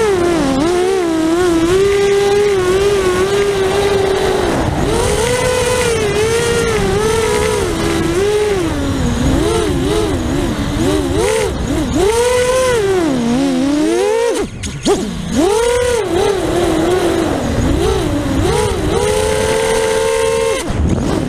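Immersion RC Vortex 285 racing quadcopter's four brushless motors and propellers whining in acro flight, heard from the onboard camera. The pitch rises and falls with every throttle change, dips briefly about two-thirds of the way through, and holds steady near the end, over a low wind rush.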